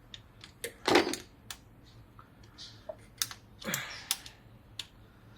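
Irregular sharp metallic clicks and taps of a hand tool working the long thermostat-housing bolt loose on a 2014 Holden Cruze engine, the loudest about a second in and a cluster near three to four seconds.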